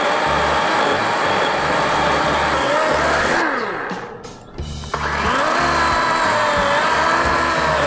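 DeWalt 20V Max XR DCCS620B brushless battery chainsaw running at speed. About halfway through, the trigger is let go and the motor winds down with a falling pitch, then it is squeezed again and spins back up with a rising whine and keeps running.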